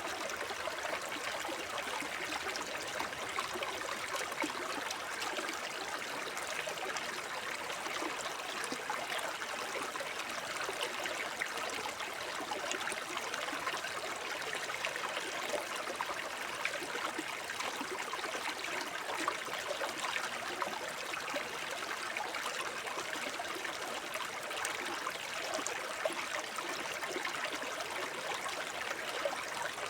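Shallow forest stream babbling over stones, a steady rush of water with lots of small splashes and gurgles.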